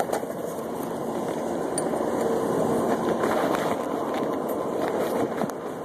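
Rubbing and rustling of a handheld phone being carried while walking, over a steady background rumble.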